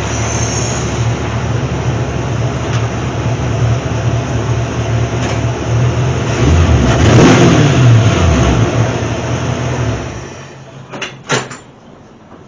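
1967 Mercury Cougar's V8 running on the road, rising in pitch as it speeds up and falling again about halfway through, with no grinding from the freshly repaired front end. The engine sound drops away about ten seconds in, followed by two sharp knocks.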